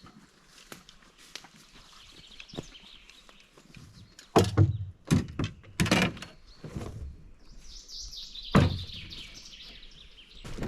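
A small bird singing a falling trill, heard twice, with several sharp, loud knocks of unknown source between the songs.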